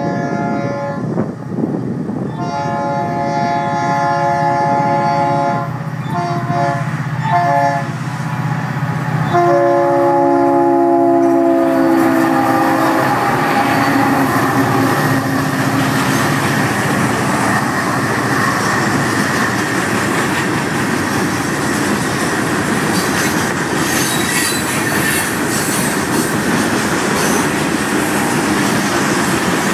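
Diesel freight locomotive air horn sounding a string of blasts, a long one, a few short toots, then a last blast whose pitch drops as the engines pass. After that the loaded train of rock hopper cars rolls by with a steady rumble and clatter of wheels on rail.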